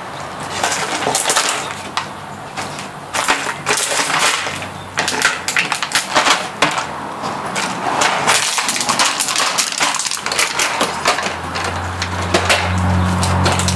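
German shepherd mouthing and chewing a plastic bottle filled with dry treats: irregular crinkling and crunching of the plastic, with sharp clicks as the bottle knocks about on the wooden deck boards. A low steady hum comes in near the end.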